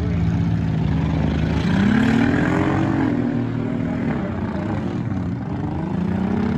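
Demolition-derby compact cars' engines running and revving. One engine's pitch rises about two seconds in and falls back, then climbs again near the end, over the steady noise of other engines.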